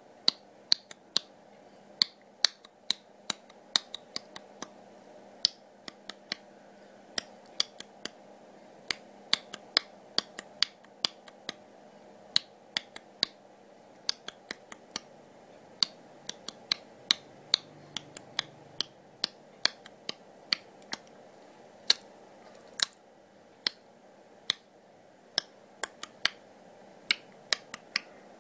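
Sharp, short clicks at an irregular pace, roughly one to three a second, over a faint steady hiss.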